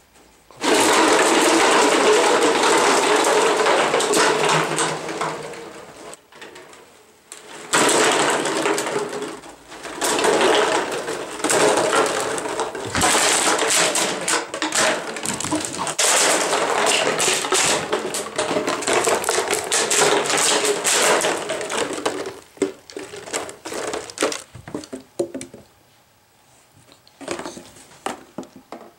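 A stacked pyramid of empty plastic water bottles collapsing onto a hardwood floor: a loud, long clatter and crackle of hollow plastic starting about a second in. More bursts of bottles rattling and crinkling follow as a beagle knocks, chases and chews them, thinning to scattered clicks near the end.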